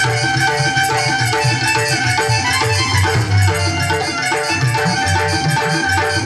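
Instrumental passage of a Marwari bhajan without singing: sustained melody notes held over a steady drum beat and rattling hand percussion.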